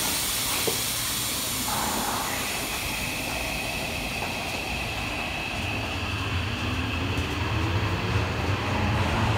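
Tokyo Metro Marunouchi Line 2000-series subway train pulling out of the station. From about halfway through, its inverter-driven traction motors give a low hum that rises steadily in pitch and grows louder as the train accelerates. A high hiss fades over the first few seconds, and a steady high tone sounds from about two seconds in.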